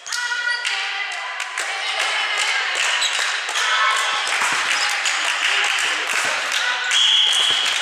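Girls' voices calling and cheering in an echoing sports hall, mixed with scattered hand claps. About seven seconds in comes one short, steady blast of a referee's whistle, the signal for the next serve.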